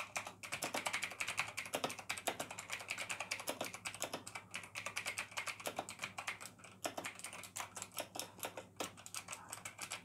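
Fast typing on a Razer BlackWidow V2 mechanical keyboard with clicky Razer Green switches: a dense, continuous run of sharp key clicks, extremely loud.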